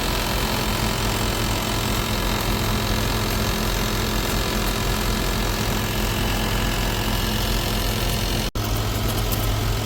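GE Profile ClearView inverter window air conditioner running, a steady low hum with a constant rushing drone and vibration that its owner calls a racket, not quiet. The sound drops out for an instant about eight and a half seconds in.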